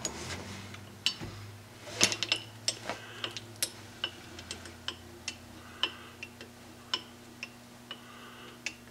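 Lathe carriage moving along the bed, with sharp, irregular metallic clicks and ticks about one or two a second over a steady low hum.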